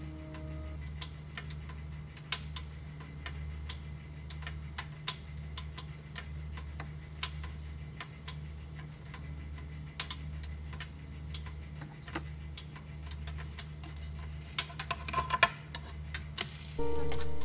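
Pancake batter cooking in a nonstick frying pan: scattered faint ticks and pops over a steady low hum. About fifteen seconds in, a spatula scrapes under the pancake to flip it, and background music comes in near the end.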